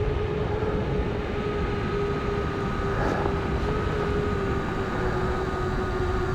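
7-inch FPV quadcopter's brushless motors and tri-blade props humming in flight: a steady tone that slowly sinks a little in pitch, over a low rumbling noise.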